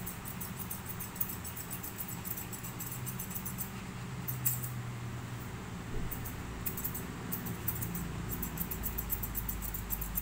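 Grooming scissors snipping through a Pomeranian's fur: quick, irregular snips, several a second, over a faint low hum.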